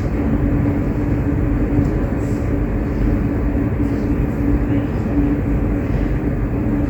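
Steady low rumbling noise with a constant hum running under it, unchanging throughout.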